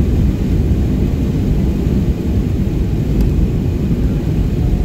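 Airliner's jet engines and taxiing rumble heard from inside the cabin: a steady, loud low rumble as the plane rolls along the taxiway.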